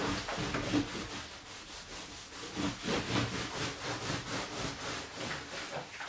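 A cloth being rubbed back and forth over a leather sofa cushion, a steady run of short wiping strokes.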